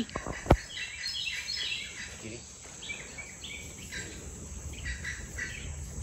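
Woodland bird calling with a run of short chirps, many dropping in pitch, with a sharp knock about half a second in.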